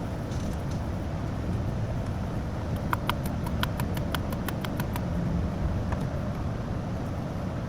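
A quick run of about a dozen light, sharp taps, some six a second for about two seconds, starting about three seconds in: tight MDS-delete plugs being tapped into the MDS solenoid holes of a HEMI V8. A steady low background hum runs underneath.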